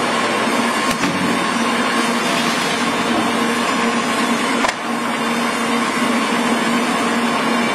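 Model 1500 wood pallet crusher running under its electric drive motor: a loud, steady hum over a rushing noise, with a sharp knock about a second in and another a little past halfway.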